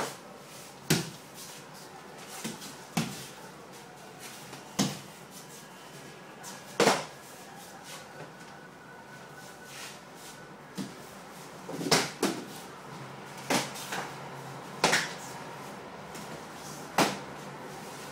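Padded sparring sticks striking gloves and bodies in stick sparring: about a dozen sharp hits at irregular intervals, some single and some in quick pairs.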